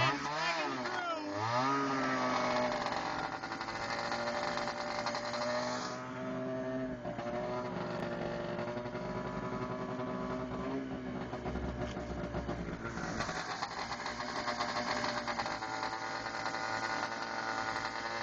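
Snowmobile engine running under way while towing a drag groomer over the trail. The revs rise and fall several times in the first two seconds, then settle into a fairly steady pitch, with a brief dip about six seconds in.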